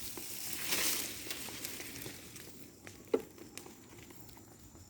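Bonfire of dried coconut palm fronds burning, crackling and hissing with scattered pops. It is louder in the first couple of seconds, dies down after that, and has one sharper pop about three seconds in.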